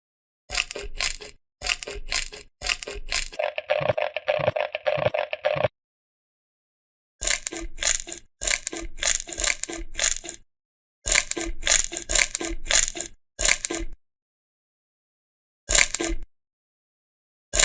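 Slime being squeezed and pressed by hand, giving crisp crunching and crackling in clusters of quick pops that stop dead between them, with a longer, wetter squish about four seconds in.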